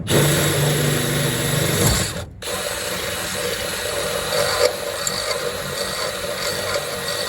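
Power drill with a larger bit running to bore out a hole: a run of about two seconds, a brief stop, then a longer steady run.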